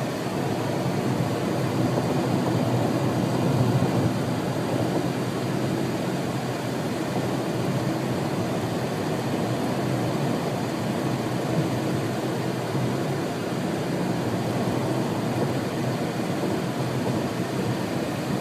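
Strong wind of a sandstorm, a steady rushing noise that swells a little a few seconds in.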